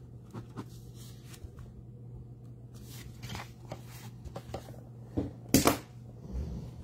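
Handling noise from a paper notepad being picked up and propped against cardboard boxes: light rustles and taps, then a louder knock about five and a half seconds in as the pad is set down, over a steady low hum.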